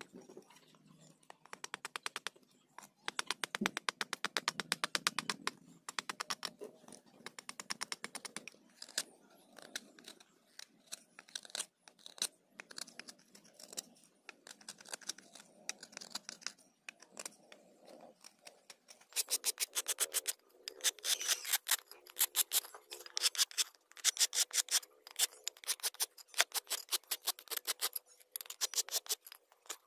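Steel knife blade scraping and shaving wood in quick repeated strokes, several a second, while carving a wooden spoon, in runs with short pauses between; the strokes grow louder and denser in the last third.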